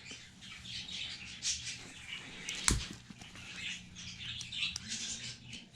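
Small birds chirping in the background, with light rustling and one sharp click a little before the middle as speedometer cables are handled.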